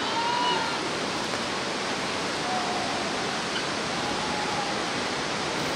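Steady rushing of the Bhote Koshi river's white-water rapids far below. A few faint drawn-out calls rise over it at the start, in the middle and near the end.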